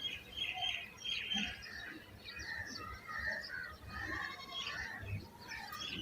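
Several birds chirping and calling, many short overlapping chirps.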